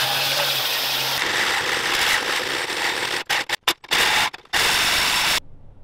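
Corded angle grinder with a cutoff wheel cutting steel plate, then, after a change about a second in, a hole saw in a cordless drill cutting through steel plate. The cutting breaks into short bursts with brief gaps partway through, then runs on and stops abruptly shortly before the end.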